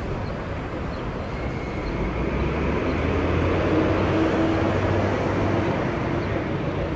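City street traffic noise, with a low vehicle engine rumble that swells louder from about two seconds in.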